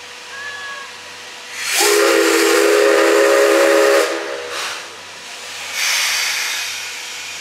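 Steam whistle of the C11-class tank locomotive C11 207 sounding one blast of about two seconds, a chord of several tones over a rush of steam, starting about two seconds in. Bursts of hissing steam follow and fade out near the end.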